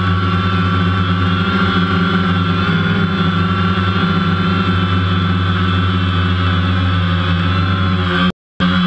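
DJI Phantom quadcopter's electric motors and propellers buzzing steadily, heard from the GoPro mounted on the drone itself, with a high whine that wavers as the motors change speed. The sound drops out for a moment near the end.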